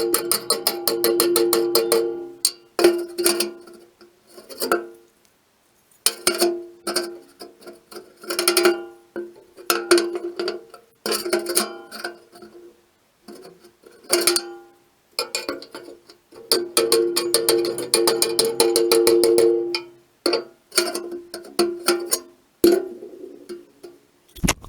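Music with rapid plucked-string picking on a few held notes, in segments broken by short pauses.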